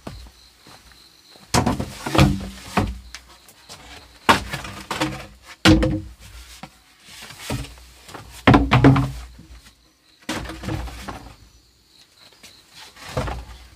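A series of irregular thuds and cracks, about a dozen spread over the stretch, some loud and some with a short low ring, over a faint steady high tone.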